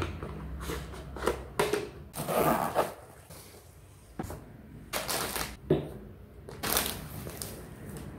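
Cosmetics and bottles being moved and set down in a plastic makeup organizer: irregular clicks, knocks and light rustling of handled items.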